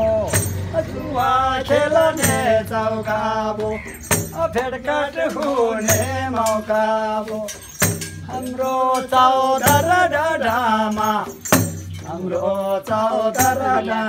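Men singing a Tamang selo juhari folk song, accompanied by a damphu frame drum and hand claps that land about every two seconds.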